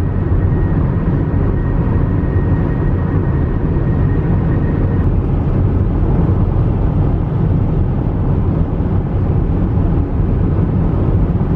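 A vehicle driving at speed: a steady, loud rumble of engine, tyre and wind noise.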